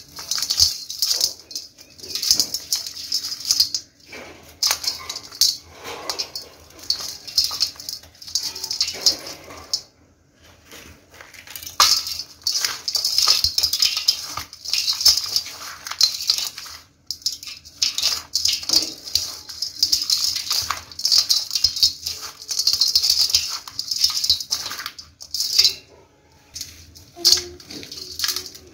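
Dry clumps of dirt crumbled and rubbed between the hands, a dense crackling with grains and powder pattering onto a perforated metal bowl. It comes in bursts of a few seconds with short pauses between.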